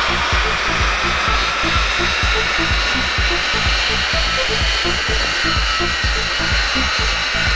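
Electronic music with a fast, steady thumping beat laid over a continuous loud rush from a BMW 330d running under load on a chassis dynamometer.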